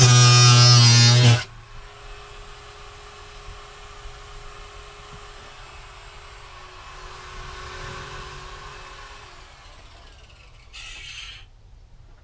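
Electric power tool cutting through the van wall, running with a loud buzzing motor and then stopping about a second and a half in. After that there are only faint sounds: a low steady hum, then a short scraping noise near the end.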